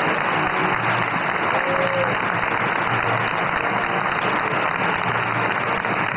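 Theatre audience and cast applauding, a steady, even clapping.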